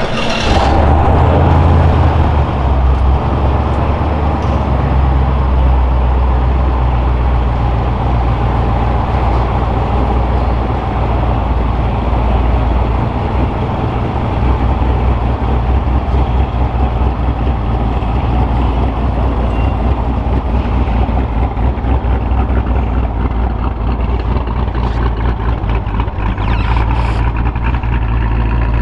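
Twin-turbo LSX V8 of a custom Chevelle SS starting up and idling steadily. It is a little louder for the first couple of seconds after it catches, then settles into an even, low idle.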